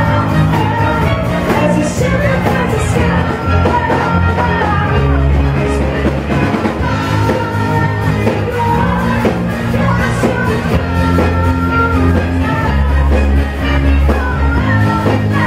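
Live pop-rock band playing loudly, with a woman singing lead over electric guitar and heavy bass.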